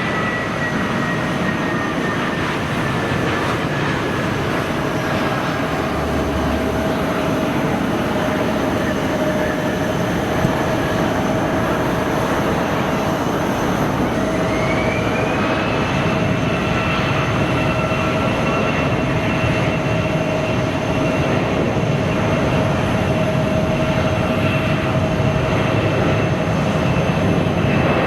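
Jet airliner engines running with a steady rushing noise and whining tones. A high whine sinks a little at first, then about halfway through a new whine rises and holds high as the engines spool up.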